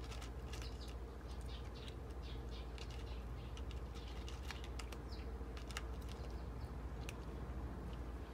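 A cat eating dry kibble from a dish close by: quick, irregular crunching and mouth clicks that thin out near the end. A few faint bird chirps are also heard.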